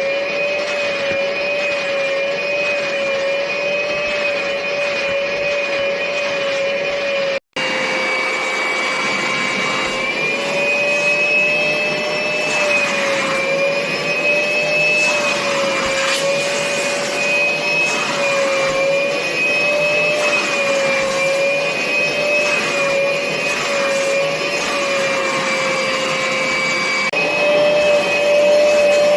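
Kärcher Puzzi 8/1 C spray-extraction vacuum running continuously, a steady high motor whine whose pitch wavers slightly as the suction load changes. The sound drops out for an instant about seven seconds in.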